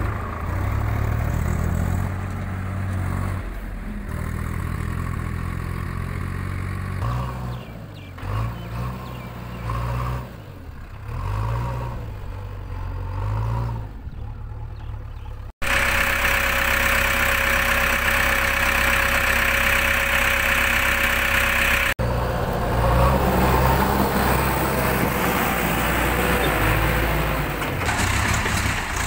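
Diesel engines of a Swaraj tractor and a JCB 3DX backhoe loader running, the engine note stepping up and down. The sound changes abruptly twice, with a louder, hissier stretch of engine noise in the middle.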